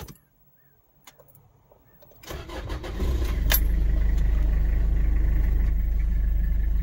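Toyota 5L-E 3.0-litre diesel engine cranking for about a second, starting about two seconds in, then catching and settling into a steady idle with a low rumble. There is a sharp click just after it catches.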